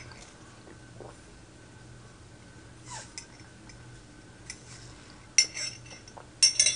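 Quiet drinking from a glass mug, with faint swallows, then a few sharp knocks in the last second and a half as the glass is set down on the table.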